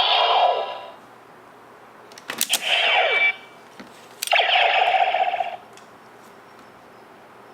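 DX Neo Decadriver toy transformation belt playing electronic sound effects through its small speaker: a sound fading out about a second in, then a sharp click and a downward-sweeping effect around two and a half seconds in, and a steady buzzing tone from about four to five and a half seconds.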